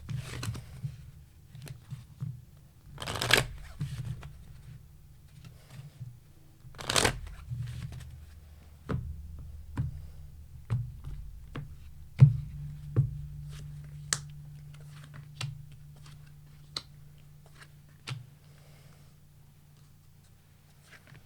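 Tarot deck being shuffled in three short bursts, followed by a string of single sharp card taps and snaps about a second apart as cards are handled, growing sparser near the end.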